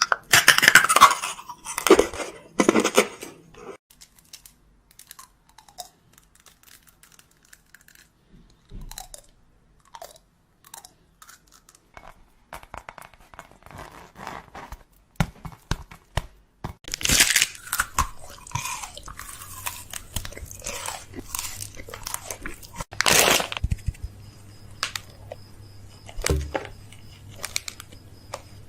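A person biting and chewing crunchy food close to the microphone. There are loud crunches in the first few seconds and again about two-thirds of the way through, with quieter chewing in between.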